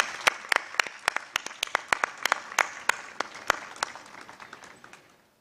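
Audience applauding, with a few louder single claps standing out over the crowd's clapping. It thins out and dies away near the end.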